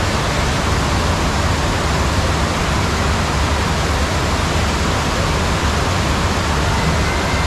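Steady rush of water pumped up the sloped ride surface of a sheet-wave surf simulator, a thick even noise with no breaks.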